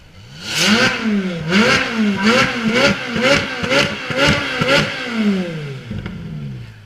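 Ferrari 458 Speciale A's naturally aspirated V8 being revved hard, with about eight quick blips of the throttle, each a rising and falling note. The revs then fall away and the sound fades near the end.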